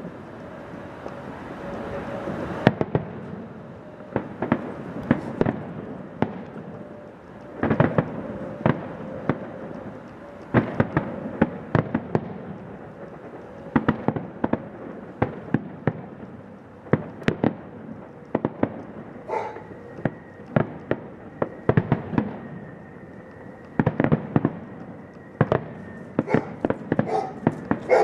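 Fireworks display: a continuous run of sharp bangs and crackling reports, some in quick clusters, with a steady whistle sounding under them at times.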